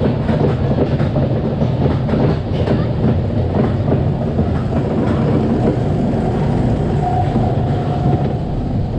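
Mine-train roller coaster running along its track, heard from the train: a steady heavy rumble of the wheels with some clattering, and a short high squeal about seven seconds in.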